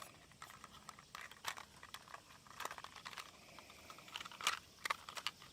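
Scattered light plastic clicks and taps as the folding arms of a Ruko F11GIM2 camera drone are swung out and handled.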